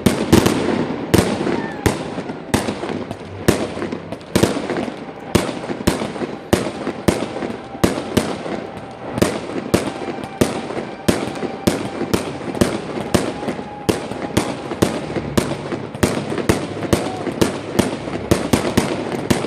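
Fireworks display: aerial shells bursting in rapid, continuous succession, about two to three sharp bangs a second over a steady crackling haze.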